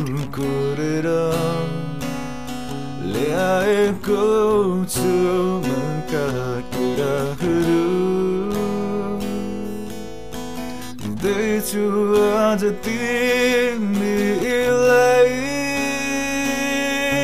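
A song with strummed acoustic guitar under a sung melody that bends and wavers in pitch.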